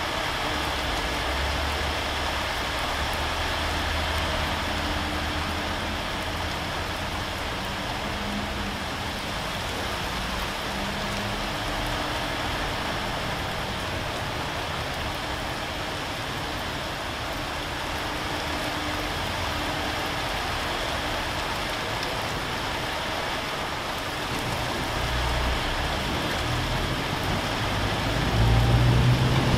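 Steady rain falling and pattering on a corrugated roof and leaves, with a low rumble underneath that swells near the end as thunder rolls in.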